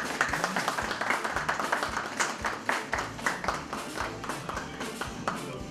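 A small group of people clapping in applause, fading out near the end.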